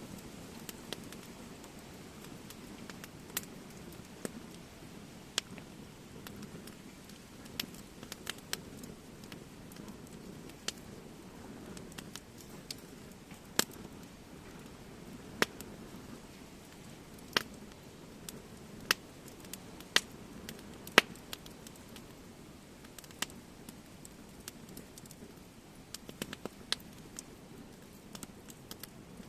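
Wood fire crackling, with irregular sharp pops every second or few over a low steady sound of burning; the loudest pops come in the middle and later part.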